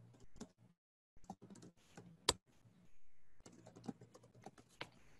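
Typing on a computer keyboard: a quick, uneven run of light key clicks, with a short pause about a second in and one sharper click a little after two seconds. The keys are being typed to enter an administrator's user name into a macOS password prompt.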